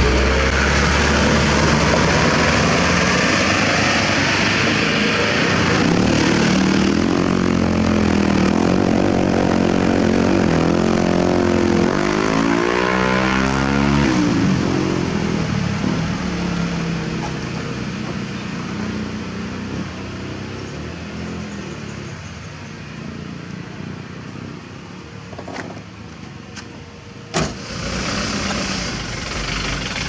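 Diesel dump truck engine running and pulling, loud with its pitch sliding up and down about halfway through, then settling to a lower, quieter running; a single sharp click near the end.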